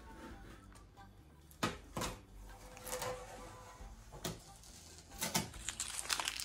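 Blue masking tape being peeled off a car's freshly painted tailgate panel: short, irregular ripping crackles, which come thickest near the end.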